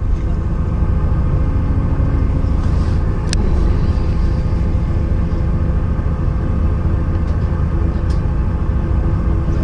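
Fishing boat's engine running steadily with a low hum, and a single sharp click about three seconds in.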